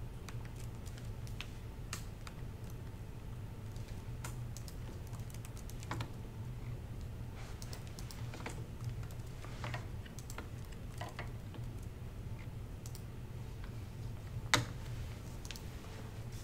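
Laptop keyboard typing: irregular bursts of key clicks, with one louder knock near the end, over a steady low hum.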